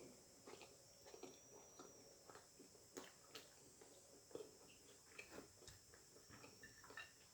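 Faint chewing: soft, irregular wet mouth clicks and smacks as a mouthful of food is chewed, with a few louder clicks scattered through.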